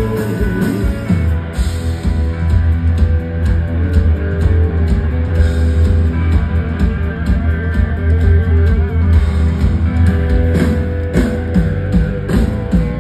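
A live rock band playing loud through a concert PA: electric guitars over a heavy bass guitar line, with a drum kit keeping a steady beat.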